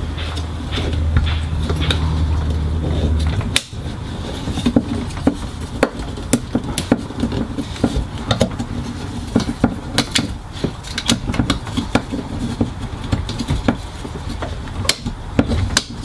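Small plastic clicks and taps, scattered throughout, as a toilet's circuit board and its plastic control-panel housing are handled and fitted together. A low steady hum runs underneath at first and cuts off suddenly about three and a half seconds in.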